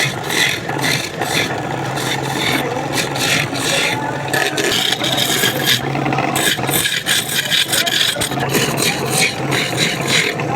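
A tool scraping against a wooden charpai leg turning on a lathe, in irregular strokes over a steady motor hum.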